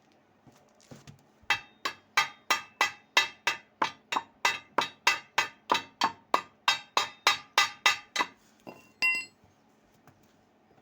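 Metal struck repeatedly at about three blows a second for several seconds. Near the end comes a single strike that rings.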